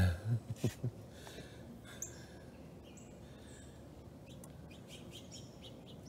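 Wild songbirds chirping in the background: a few short, high chirps about two and three seconds in, over a faint steady outdoor hiss. A few soft handling bumps in the first second.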